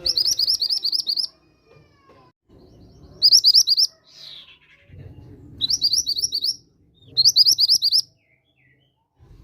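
Mantenan gunung bird calling: four quick bursts of rapidly repeated high, chattering notes, each about a second long, over a faint low rumble.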